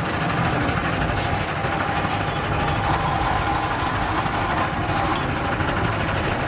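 Motor-driven sugarcane juice press running steadily, its steel rollers crushing sugarcane stalks fed into it, with an even mechanical hum.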